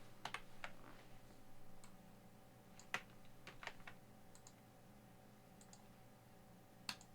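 Faint, scattered clicks at a computer, about seven spread over several seconds, over a steady low hum.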